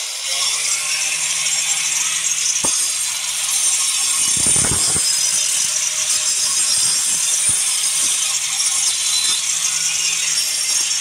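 Electric angle grinder running steadily, grinding against a brick face, with a steady motor hum under a loud, high-pitched grinding hiss.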